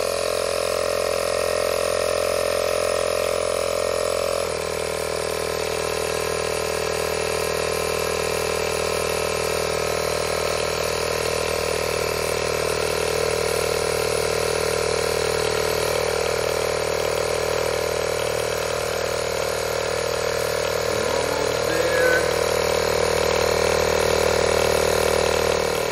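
Tesla tire repair kit's 12-volt portable air compressor running, inflating a tyre toward 42 psi. It makes a steady drone, with a small drop in tone and level about four and a half seconds in.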